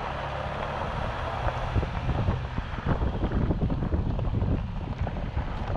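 Wind buffeting the microphone in uneven gusts, over the steady low hum of a running vehicle engine.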